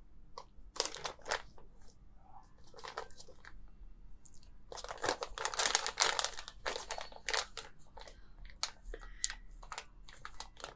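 Clear plastic packaging bag crinkling and crackling as it is handled, in irregular bursts that are busiest about halfway through.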